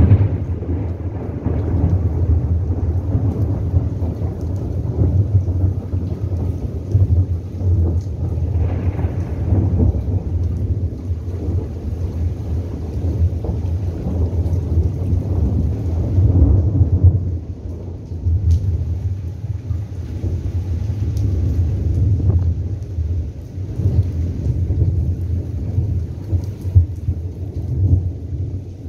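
Rain during a thunderstorm, with a heavy, continuous low rumble underneath that eases briefly a little past halfway.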